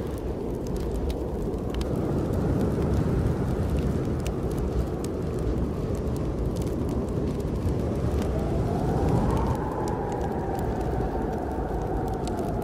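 Steady low rumble of snowstorm wind with small fireplace crackles scattered throughout. About eight seconds in, a thin wind whistle rises, then slowly falls away.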